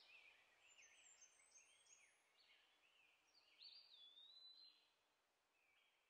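Faint birdsong: several birds chirping and whistling, with a clearer drawn-out whistle near the middle, after which the calls drop away to a quieter level.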